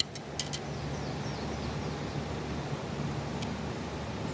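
Steady rush of creek water, with a few sharp clicks right at the start and faint bird chirps about a second in.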